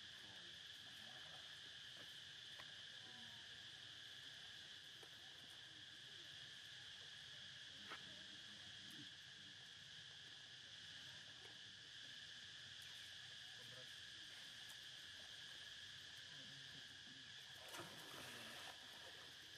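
Faint, steady high-pitched drone of insects calling. A single soft click comes about eight seconds in, and a brief rushing noise near the end.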